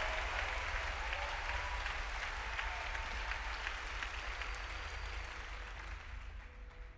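Large theatre audience applauding as a speaker takes the stage, the clapping dying away near the end.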